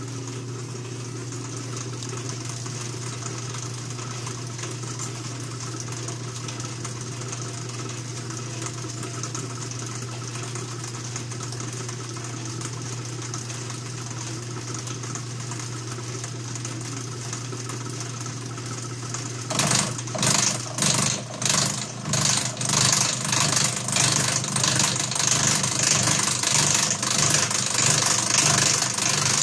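Atlas horizontal milling machine running in back gear with a steady hum. About two-thirds of the way through, its 2.5-inch cutter bites into a 303 stainless steel piston valve and the sound turns louder, with a rhythmic pulsing chatter, as the slot is milled on a light first pass of about 25 thousandths of an inch.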